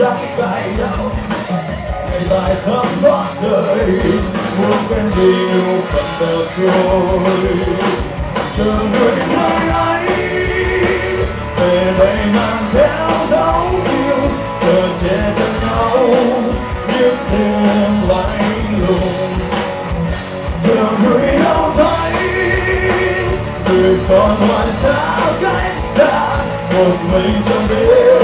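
Rock band playing live: electric guitars, bass guitar, keyboard and drum kit, with a man singing the lead vocal.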